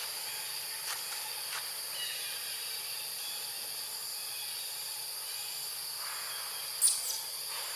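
Steady high-pitched drone of forest insects, with two or three short, sharp high calls about seven seconds in.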